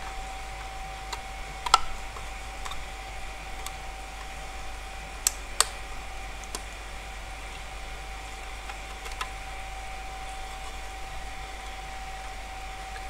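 Sharp clicks and taps of a plastic project box being handled as parts are fitted into it: the loudest about two seconds in and a close pair in the middle, with smaller ticks between, over a steady background hum.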